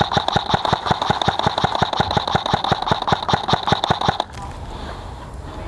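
Airsoft electric gun firing a long full-auto burst, about eight shots a second over a steady motor whine, stopping abruptly about four seconds in.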